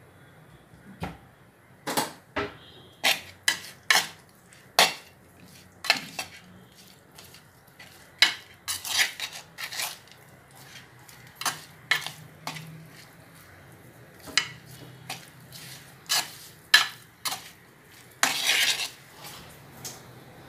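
A spoon clinking and scraping against a bowl while mixing raw chicken in its spice marinade: irregular sharp clinks, about one or two a second, with longer scrapes around nine seconds in and near the end.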